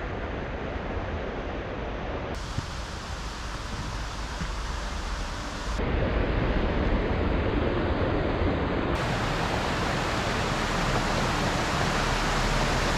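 Rushing mountain stream: water running over rocks as a steady, full hiss, its level and tone shifting abruptly three times.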